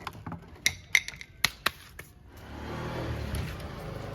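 A few sharp clicks, then an engine starts up a little over two seconds in and keeps running, growing louder.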